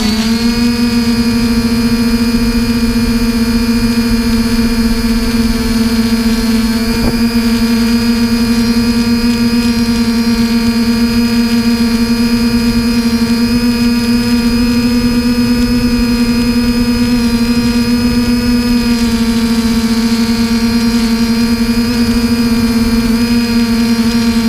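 Drone's electric motors and propellers running with a steady buzzing whine, heard up close from the camera mounted on the drone; the pitch rises slightly right at the start, then holds nearly constant. A small click about seven seconds in.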